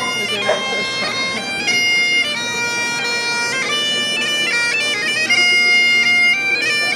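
Great Highland bagpipes playing a tune: the chanter melody steps from note to note over the steady drone.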